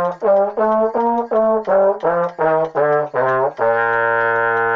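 Yamaha trombone playing a concert B-flat scale in short, separately tongued notes. It reaches the top of the scale and steps back down, then holds the low B-flat as a long final note from about three and a half seconds in. The player says the instrument needs tuning.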